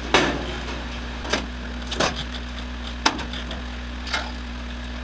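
About five sharp knocks and clicks, roughly a second apart, from sheet-metal parts and hand tools being handled, over a steady shop hum. The loudest knock comes near the start, and there is a sharp click about three seconds in.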